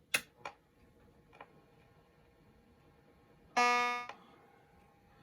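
Two sharp clicks in quick succession and a fainter click a second later, then a short buzzy electronic tone lasting about half a second.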